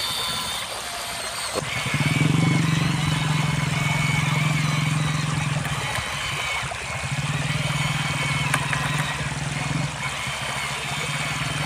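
Motors of a radio-controlled toy excavator running in spells: a steady hum that starts about two seconds in and drops out briefly twice, over a constant hiss.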